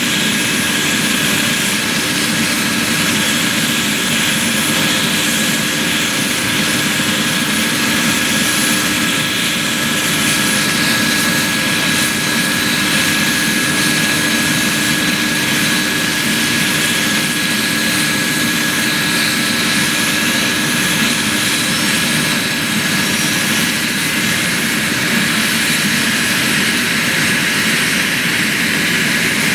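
Aerospatiale AS 365 Dauphin helicopter running steadily, its twin turbine engines giving a steady high whine over the broad noise of the rotors.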